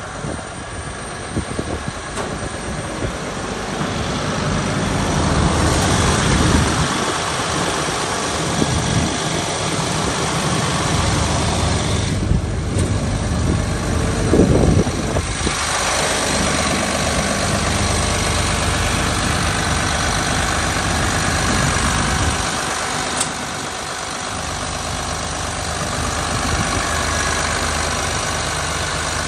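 Komatsu PC360NLC-10 excavator's six-cylinder diesel engine idling steadily, heard up close. It grows somewhat louder over the first few seconds.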